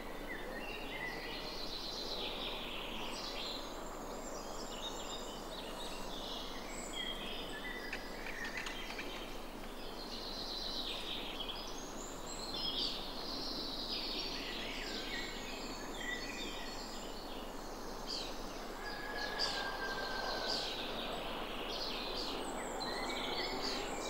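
Woodland birdsong: several birds singing and calling at once, many overlapping chirps and trills, over a steady outdoor background hiss.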